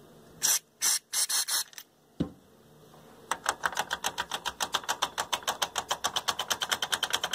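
Several short hisses of aerosol contact cleaner sprayed through a straw into an amplifier's mode switch, then a single click. From about three seconds in comes a rapid, even clicking, about eight clicks a second: the switch being worked back and forth to spread the cleaner through its contacts.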